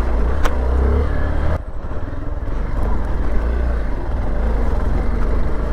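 Hero XPulse 200 4V motorcycle's single-cylinder engine running steadily under way, with the noise of the ride over it; the engine sound drops off briefly about a second and a half in, then picks up again.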